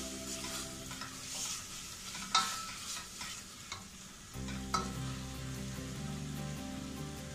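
A slotted spatula stirring and scraping a thick spice masala frying in oil in a stainless steel pot, over a steady sizzle, with a couple of sharper scrapes against the pot. This is the masala being fried down after the ground spices and salt have gone in.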